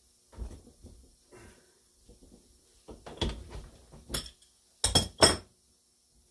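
Metal clanks and knocks as a Lisle exhaust pipe expander is loosened, its die turned inside the exhaust pipe to keep the pipe round, and the tool worked again. A few sharp metallic clacks come about four to five seconds in.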